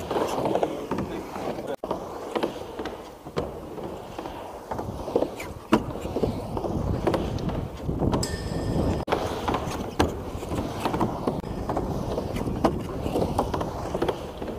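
Skateboard wheels rolling on the vert ramp, a rumble that swells and fades as the board rides back and forth through the transitions, with frequent sharp knocks from the board and trucks. A short high ringing tone comes about eight seconds in.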